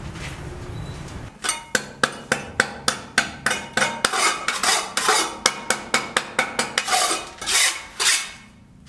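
A fast run of sharp metallic clinks, about three to four a second, each with a short ring. It ends with a few longer scraping sounds.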